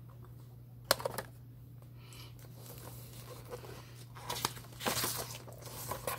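Record sleeves being handled: two sharp clicks about a second in, then rustling that grows busier and louder toward the end, over a steady low hum.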